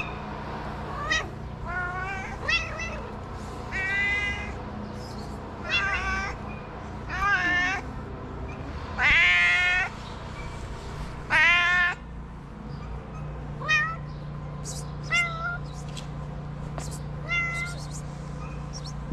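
Cat meowing again and again, about a dozen meows that bend up and down in pitch. The loudest are two long meows about halfway through, and shorter, fainter ones come toward the end.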